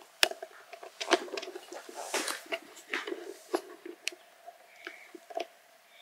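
A four-month-old baby sucking and mouthing another baby's hand: irregular wet smacking and sucking clicks.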